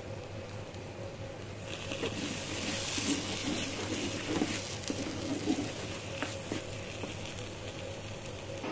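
Thick chitol fish mash frying and sizzling in a non-stick pan while a wooden spatula stirs and scrapes it, with small clicks of the spatula against the pan. The sizzling swells about two seconds in and eases off after about six seconds, over a steady low hum.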